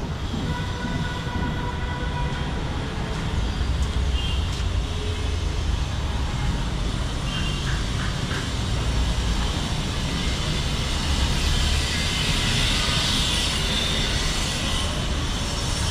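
Steady low rumble of heavy machinery, with a few faint high squeals over it.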